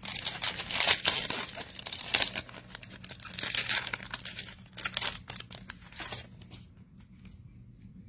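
Foil wrapper of a Status basketball trading-card pack being torn open and crinkled by hand; the crackling stops about six seconds in.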